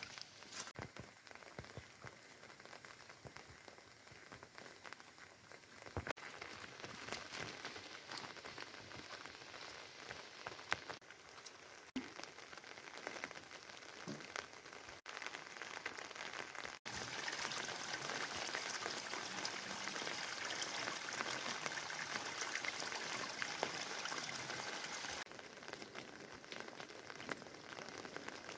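Rain falling, a steady patter of many drops on surfaces. It gets noticeably louder a little past halfway and eases back near the end.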